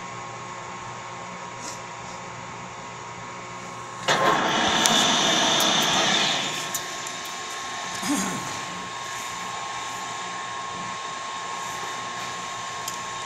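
Metal lathe running with a steady motor hum and a thin, even whine. About four seconds in, a loud rushing noise starts suddenly and lasts about two and a half seconds before the hum settles back.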